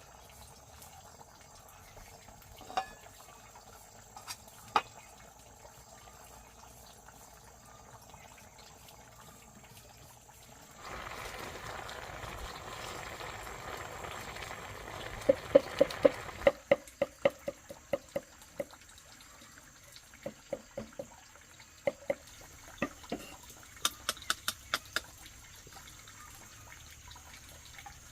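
Water running for about five seconds near the middle, then a string of sharp knocks and clinks of handled objects.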